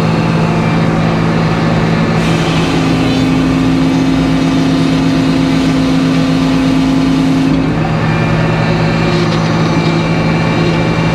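Edmiston HYD circular sawmill's large saw blade running steadily. From about two seconds in until nearly eight seconds, the blade cuts through a small walnut log, adding a loud hissing cutting noise over the drone. It then goes back to spinning free.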